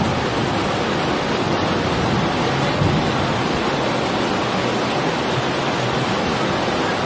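Heavy rain pouring down in a thunderstorm: a dense, steady hiss.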